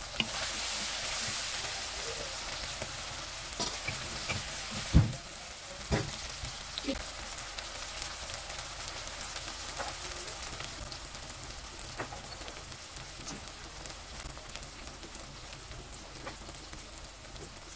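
Sliced onions and tomatoes sizzling in oil in a nonstick wok as they fry down until soft, with a spatula stirring and a few sharp knocks against the pan, the loudest about five seconds in.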